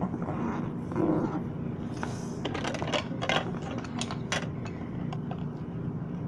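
Handling noise close to the microphone: scattered sharp clicks and light knocks, thickest in the middle, over a steady low hum.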